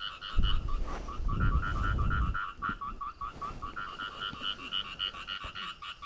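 Frogs calling in a steady chorus of rapid pulses, several a second. A low rumble is louder in the first couple of seconds.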